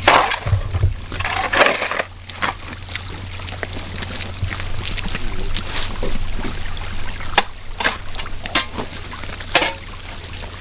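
Metal shovel scraping and scooping wet dirt and debris, in strokes a second or two apart, while water from a broken water main runs along the ground. A low steady hum sits underneath.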